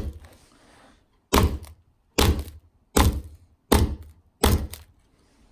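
Ball-pein hammer striking the back glass of an iPhone 4 over the rear camera, about six sharp blows. After the first there is a gap of about a second and a half, then the rest come a little under a second apart. The phone lies in a plastic tray on carpet, which gives each blow a dull thunk.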